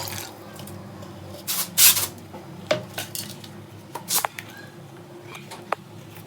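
Metal utensil clinking and scraping against a cooking pot: a handful of separate knocks, the loudest about two seconds in, some ringing briefly.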